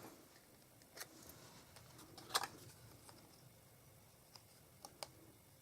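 Faint handling of card and paper: a few light clicks and rustles, the loudest about two and a half seconds in.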